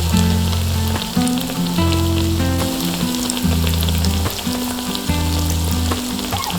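Oil sizzling and crackling steadily as food fries in a miniature pan, over soft background music with low held notes.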